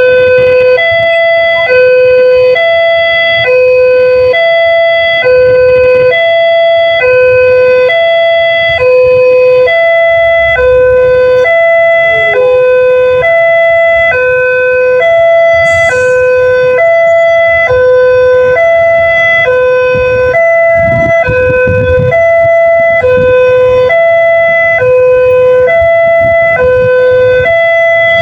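Railway level-crossing warning siren sounding a steady, loud two-tone wail, switching between a lower and a higher tone about every three quarters of a second.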